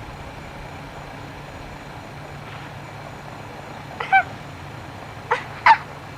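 Short high-pitched cries: one about four seconds in, then two quick ones near the end, the last the loudest, over a steady hiss and low hum.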